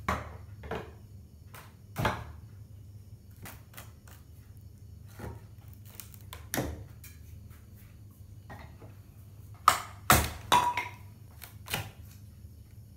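Wooden crate being pried apart with a hammer and a metal pry bar: about ten scattered sharp knocks and clatters of wood and metal, loudest in a quick cluster about ten seconds in, where one hit rings briefly.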